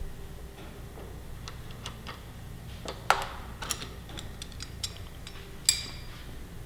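Irregular light clicks and taps of hand tools and small metal parts as the fuel cap and its base are unbolted from a motorcycle's tank. The two sharpest clicks come about three seconds in and near the end, over a low steady hum.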